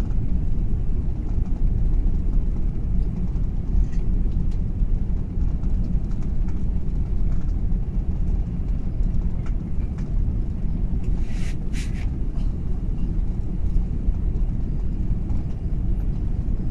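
Steady low rumble inside the cabin of an Airbus A380, with a few light rattles and a short high clatter about halfway through.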